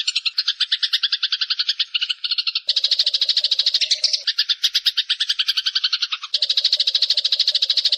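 Eurasian tree sparrow chattering: a long, rapid, unbroken run of short harsh notes, many a second, shifting in tone twice along the way.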